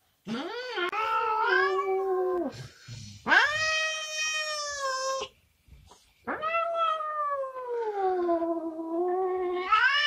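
A cat meowing: three long, drawn-out meows with short pauses between them. The last one is the longest, sagging in pitch and then rising again near the end.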